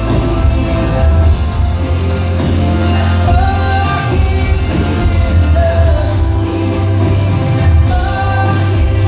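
Live pop band playing with a male lead singer, a heavy bass under the vocal, heard from within the audience.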